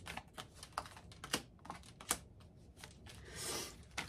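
Tarot cards being shuffled and handled: a run of light, irregular clicks and taps, with a short swish of cards sliding about three and a half seconds in.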